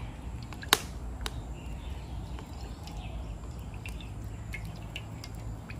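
A sharp knock about three-quarters of a second in, then a few light clicks, over a low steady rumble. These are the sounds of a wok being handled as cooking oil goes into it, with faint bird chirps in the background.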